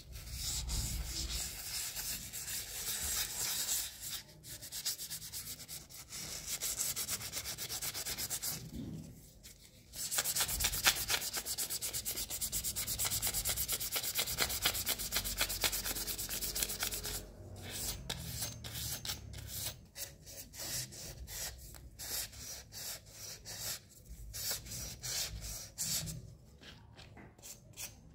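Hand-held P400 sandpaper rubbed back and forth over a small brass vase, sanded wet with soapy water: a fast, steady rasping in long runs. There is a short pause about nine seconds in, and the strokes become choppier and intermittent in the last third.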